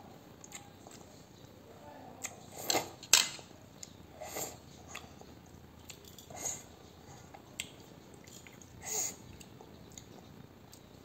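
A young child eating noodles off a fork: scattered short slurps and chewing sounds, with a sharp clink of the metal fork against a metal dish a little over three seconds in and another short click later.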